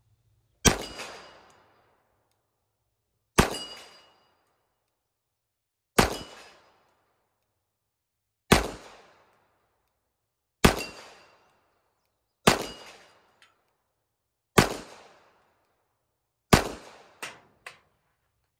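Ruger SR1911 .45 ACP pistol firing eight slow aimed shots of 230-grain ball ammunition, about two to two and a half seconds apart, each shot followed by a short echo. Two lighter clicks come just after the last shot.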